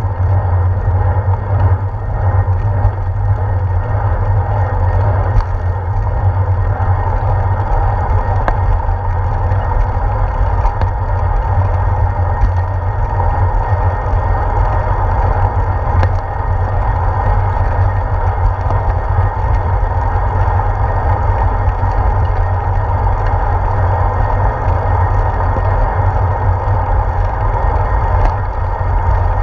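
Steady low rumble of a bicycle ride on a paved path, wind and road vibration picked up by a handlebar-mounted GoPro camera, with a few faint ticks.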